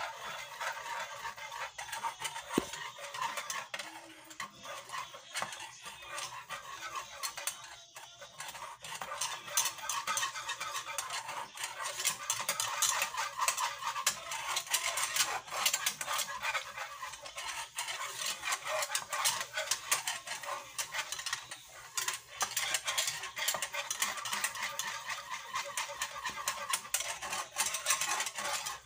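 Wire whisk beating fast around a small metal saucepan, a continuous rapid clinking and scraping of wire on steel, as chocolate is stirred into hot milk until it melts.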